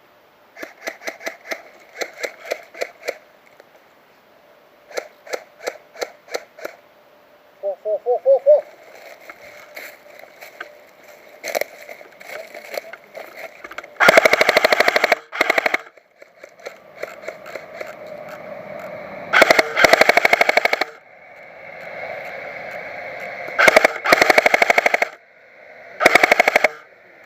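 Airsoft electric guns firing. In the first half come strings of quick shots and short bursts. In the second half come four long full-auto bursts of rapid clicks, each lasting one to two seconds, and these are the loudest.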